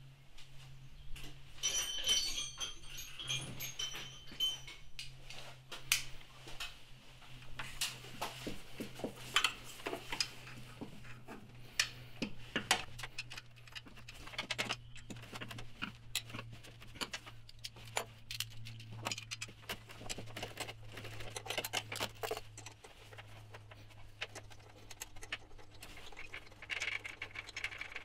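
Hand work in an engine bay: scattered clicks, taps and rubbing as tools and bolts are handled, with a brief metallic jingle about two seconds in, over a low steady hum.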